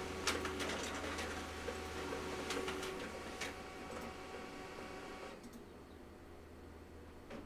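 Faint scattered clicks and light ticks over a steady low hum. The background hiss drops away about five seconds in.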